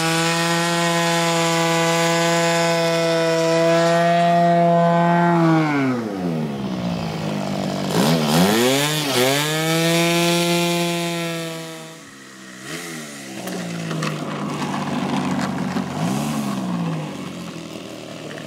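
Small model airplane engine running at high revs, throttled down about six seconds in, revved up again, then dropped to a low idle about twelve seconds in, with short blips of throttle near the end. This is a ground run-up while the plane is held on the runway.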